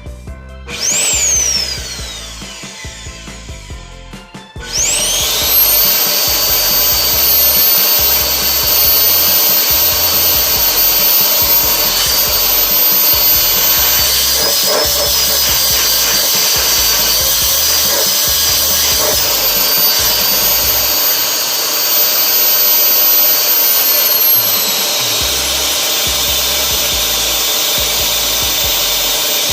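Salvaged vacuum cleaner motor (1.6 hp AC motor) giving a short burst that winds down with a falling whine, then starting with a quickly rising high whine and running at high speed; near the end its pitch drops as it settles at a lower speed.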